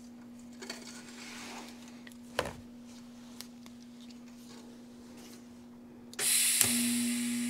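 Steady electrical hum of a TIG welder, with a stainless steel pipe being handled and set upright on the bench with one sharp knock. About six seconds in, the TIG arc strikes with a sudden loud hiss and buzz as a fusion weld without filler begins, joining a V-band flange to the stainless tailpipe.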